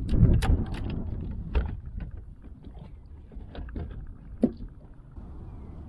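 Low rumble of wind on the microphone in a small fishing boat, with scattered light knocks and clicks of gear being handled; one sharper knock about four and a half seconds in.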